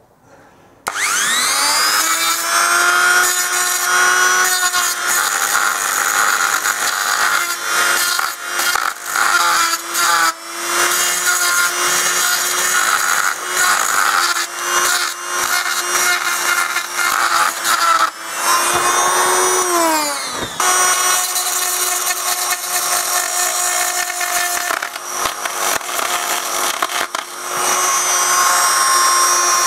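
Small electric die grinder spinning up about a second in, then running with a steady high whine as its bit grinds rust off the steel motorcycle frame. About two-thirds through it winds down, cuts out briefly and starts again.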